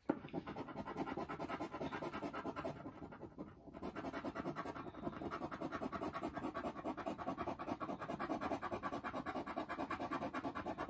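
Scratch-off lottery ticket being scraped with a round scratcher disc: rapid, even back-and-forth scratching strokes as the coating comes off, with a brief pause about three and a half seconds in.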